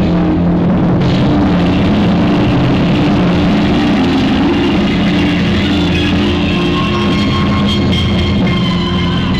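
Live rock band playing loud, with electric guitar over drums, heard through a faulty camera microphone that muddies and distorts the sound.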